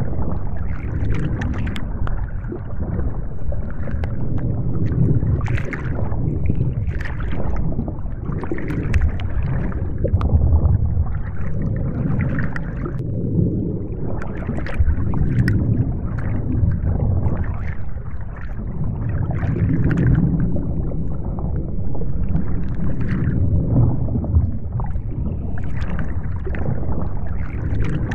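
Underwater ambience: a continuous low rush of water with gurgles, swelling and easing every few seconds.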